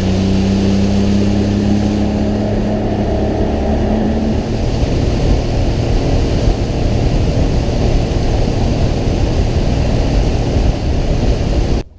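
Motorboat engine running at speed, a steady engine hum under the rush of water and wind as the boat travels, cutting off suddenly near the end.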